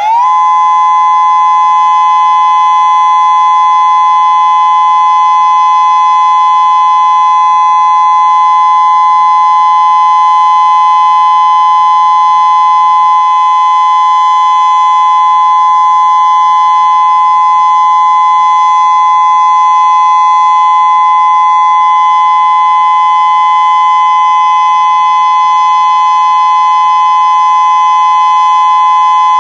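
Civil defense outdoor warning siren sounding the steady Attention Alert Signal in a test of Hawaii's state emergency sirens. It winds up in pitch right at the start, then holds one loud, steady tone.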